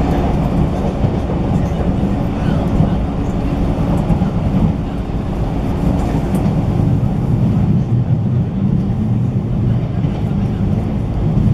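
Running noise of a JR 185-series electric train heard inside a motor car: a steady low rumble with a few faint clicks from the wheels.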